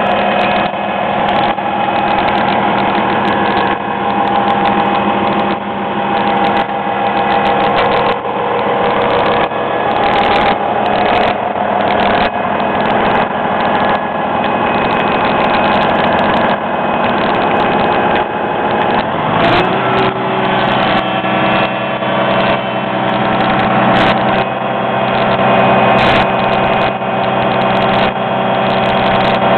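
Volvo EC700BLC crawler excavator's diesel engine running steadily, with frequent short clicks over it. About two-thirds of the way through the engine speed rises and holds at the higher pitch.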